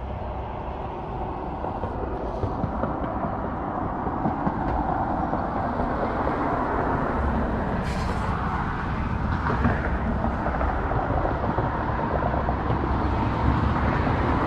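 Steady traffic noise from a nearby highway: a continuous rushing hum of passing vehicles that slowly grows louder.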